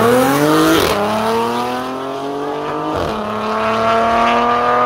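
Car accelerating hard from a drag-race launch, its engine pitch rising steadily through each gear. There are upshifts about one second and three seconds in, and each drops the pitch before it climbs again.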